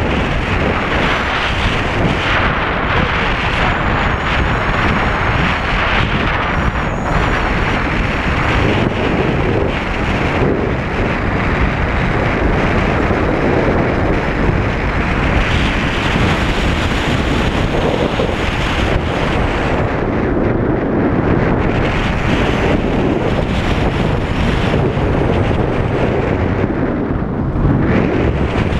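Wind buffeting an action camera's microphone as a tandem parachute descends under canopy: loud, steady rushing and rumbling.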